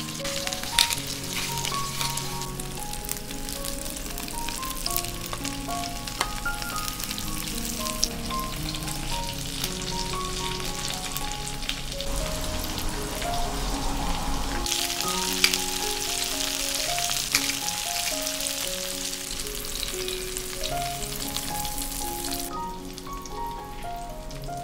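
Cauliflower steaks sizzling as they fry in oil in a nonstick pan, a steady crackling hiss that drops away near the end. Gentle background music plays underneath.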